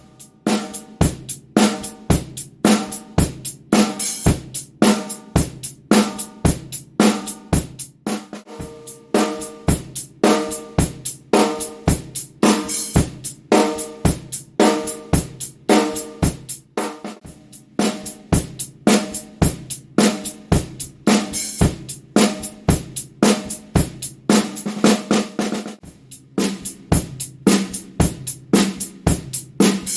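Drum kit played in a steady groove, with a 1967 Ludwig Supraphonic snare drum with a coated head taking the backbeat over bass drum, hi-hat and cymbals.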